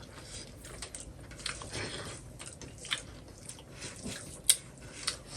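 A person eating buffalo leg meat and soup close to the microphone: irregular chewing and mouth smacks, with small clicks throughout and one sharper click a little after four seconds.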